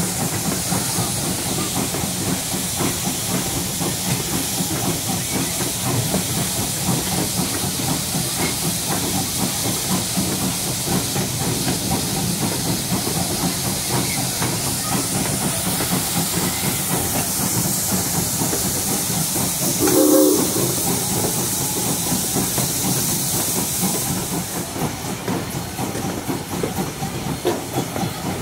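Steam locomotive hissing steadily over the low rumble of the train. A brief pitched tone sounds about two-thirds of the way through, and the hiss thins out near the end.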